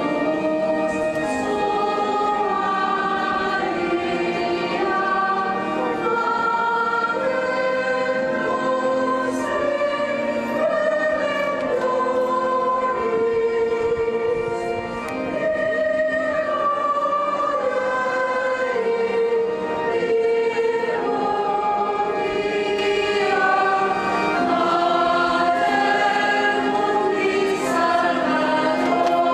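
Choir singing a sacred hymn at Mass in long held notes, several voices together.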